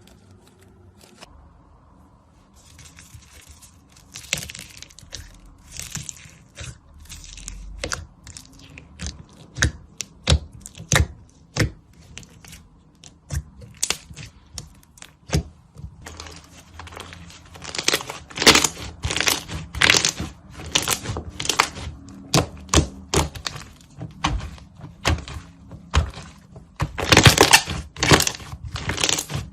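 Slime being squeezed and pressed by hand, giving irregular sharp pops, clicks and crackles, sparse at first and coming in dense clusters later.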